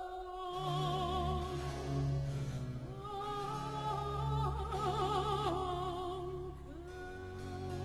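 Slow classical music: a held melody line with vibrato over sustained low notes.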